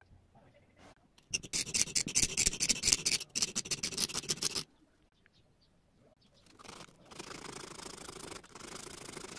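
Flat hand file rasping across a strip of saw-blade steel held in a bench vise, in a run of rapid short strokes from about a second and a half in. After a pause of about two seconds, a quieter, steadier rasping starts up and runs on.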